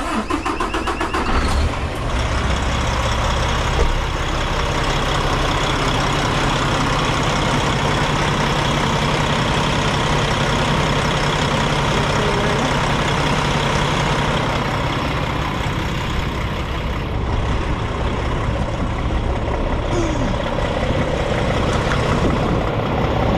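A semi-truck's diesel engine idling steadily, with one short knock about four seconds in.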